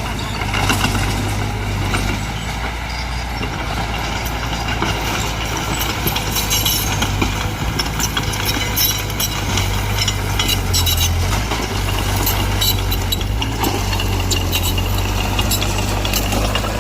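Diesel engine of earthmoving machinery running steadily, with rapid metallic clicking and rattling over its low hum.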